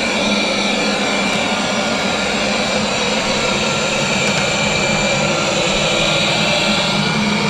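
Roborock S8 robot vacuum cleaner running, its suction fan making a steady hum with a high whine over it.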